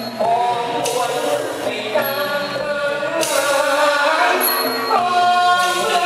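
A Thai singer holding long, wavering sung notes in a melismatic vocal line over instrumental accompaniment.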